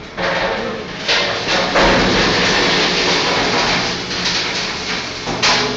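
Industrial belt conveyor running: a steady rumbling clatter with a low hum, broken by several louder knocks and bangs, the loudest about a second and two seconds in and again near the end.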